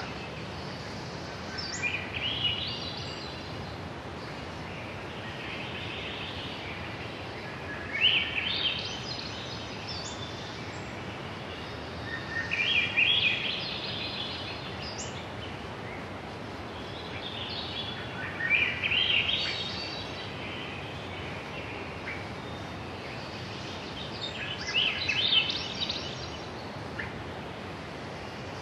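A songbird singing a short, high-pitched phrase of quick stepped notes, repeated about every five to six seconds, over a steady outdoor background hiss.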